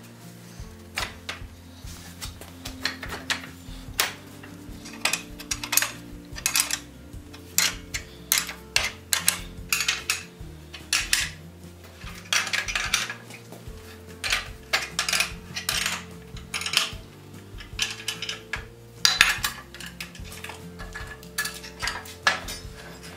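Irregular metallic clinks and clanks of hand tools and iron wagon brake parts being handled and fitted, over faint background music.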